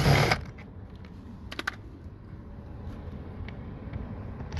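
Scattered sharp clicks of a hand tool working on the door's 10 mm bolts, after a short burst of noise at the very start.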